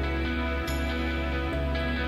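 Soft instrumental background music with sustained bass and gently changing notes, a plucked-string sound among them.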